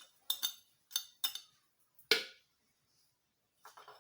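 Kitchenware knocking and clinking: about six sharp taps with brief ringing, the loudest about two seconds in, as lemon peels and juice are handled.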